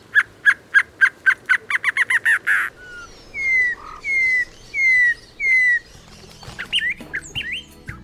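A silvery-cheeked antshrike sings an accelerating series of notes that speeds up into a fast run. It is followed by a campo troupial giving four slurred, falling whistles evenly spaced. Near the end, short upward chirps come from another bird.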